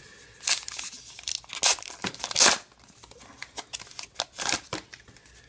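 Plastic wrapper of a 2018 Topps Allen & Ginter baseball card pack being torn open and crinkled by hand. There are three loud rips in the first two and a half seconds, then softer crinkling.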